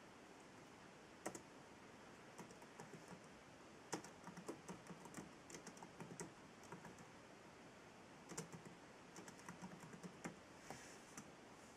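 Faint typing on a laptop keyboard: scattered single key taps and short irregular runs of clicks.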